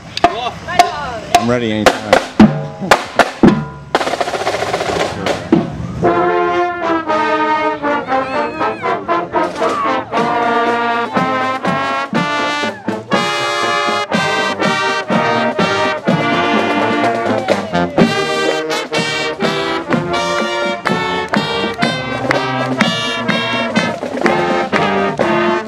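Marching band passing close by: a few seconds of sharp drum hits and a crash, then from about six seconds in the brass section of trumpets, trombones and sousaphones plays a tune over the drums.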